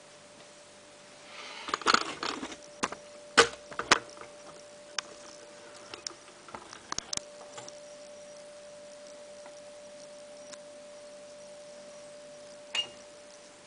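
Scattered sharp clicks and knocks from the plastic detergent drawer of a Samsung washing machine being handled, a cluster of them about two seconds in and single ones after, over a faint steady hum.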